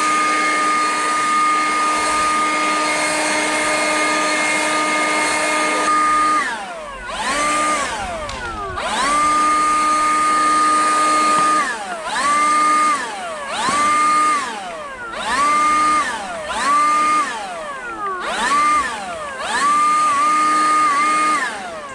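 Leaf blower running at a steady high whine, then its motor repeatedly winding down and spinning back up, about seven times.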